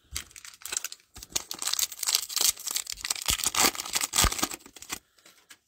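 Foil wrapper of a Panini Mosaic football card pack being torn open and crinkled by hand. The dense crackling rustle stops about a second before the end.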